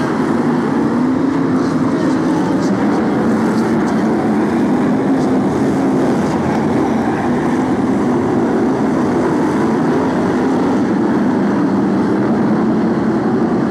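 The V8 engines of a pack of BriSCA F1 stock cars running together at race speed, a loud, steady, continuous engine noise with no breaks.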